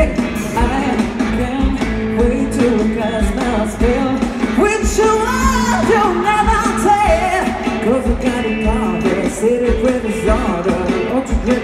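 Male singer singing a pop song live with a band over a stage PA. Keyboard and trumpet play along over a steady low drum beat.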